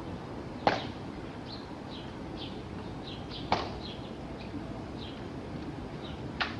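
Three sharp clicks, about three seconds apart, from the guard soldiers' drill movements during the changing of the guard, with birds chirping faintly in the background.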